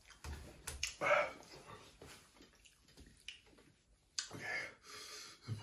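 Scattered clicks and short rustles of hands handling cardboard takeaway boxes and a small bottle of hot sauce being added to the wings.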